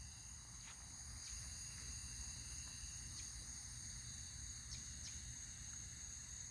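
Steady, faint, high-pitched insect chorus of trilling crickets, with a few faint ticks scattered through it.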